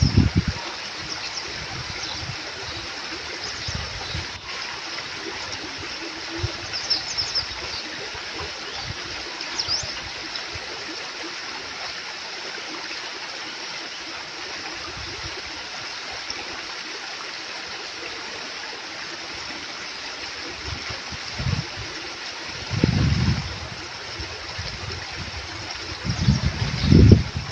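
A small stream flowing and trickling steadily, with a few short low rumbles near the end.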